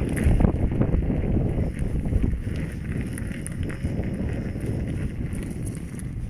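Wind rushing and buffeting over the microphone on a moving electric unicycle ride along a rough, cracked concrete track, with a few faint clicks. The rush is strongest at first and eases a little after about two seconds.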